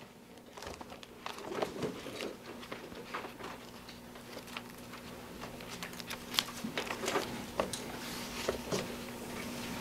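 Scattered rustling and light taps of Bible pages being turned as the congregation looks up a passage, over a steady low hum.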